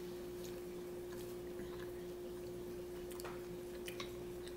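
Faint chewing of a crunchy hard-shell taco: scattered small crackles and mouth clicks, the sharpest about three and four seconds in, over a steady hum.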